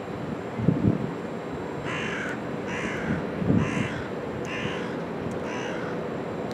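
A crow cawing five times, about a second apart, over the low rumble of passenger coaches rolling away over the points, with two heavier low thuds from the wheels.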